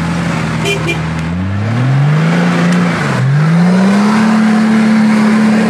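Off-road 4x4's engine running, revving up about a second and a half in, dropping briefly, then revving up again and holding at high revs.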